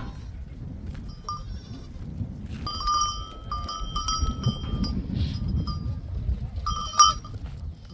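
Bells on a flock of sheep and goats clinking and ringing as the animals move, loudest in a sharp clang near the end, over a steady low rumble of wind on the microphone.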